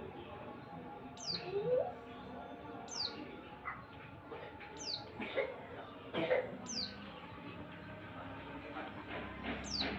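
Pleci (white-eye) bird calling: short, high notes that fall quickly in pitch, repeated about every two seconds. A lower, rising note comes near two seconds in.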